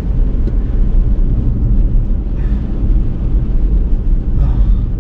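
Car driving through a snowstorm, heard from inside the cabin: a steady low rumble of engine, tyres and wind.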